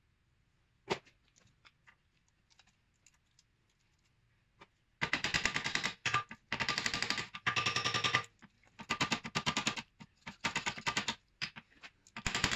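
Rapid metallic hammering in about six short bursts of roughly a second each, starting about five seconds in: the inner CV joint of a VW T4 driveshaft being knocked off its splines.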